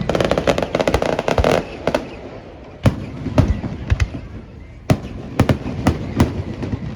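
Fireworks going off: a dense run of rapid crackling for the first second and a half, then single sharp bangs about every half second to a second.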